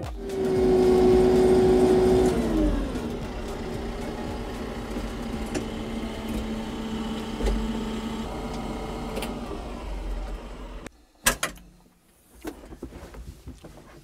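TYM T754 tractor's diesel engine running at raised revs, then dropping to idle about two and a half seconds in. It idles steadily until it is shut off near the eleventh second, and a couple of sharp clicks follow.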